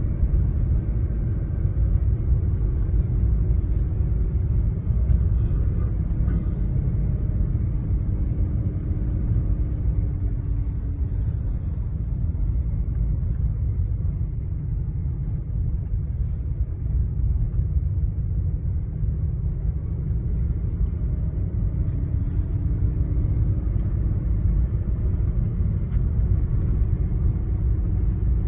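Vehicle driving on a snow-packed gravel road, heard from inside the cab: a steady low rumble of engine and tyres, with the engine note rising and easing a little now and then and a few light clicks.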